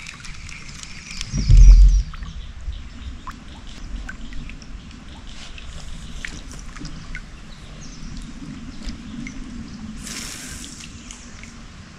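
River water trickling and lapping around a kayak, with scattered light clicks. A heavy low thump comes about a second and a half in and is the loudest sound, and a short hiss follows near the end.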